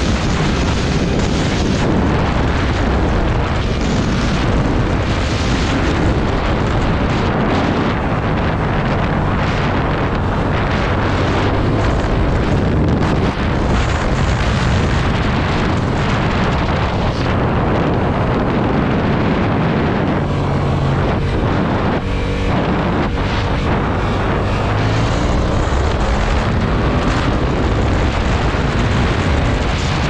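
Heavy wind rushing over the microphone of a 2020 Yamaha MT-07 riding at speed, with the bike's 689 cc parallel-twin engine running underneath. Later on the engine note rises in a few sweeps as it accelerates.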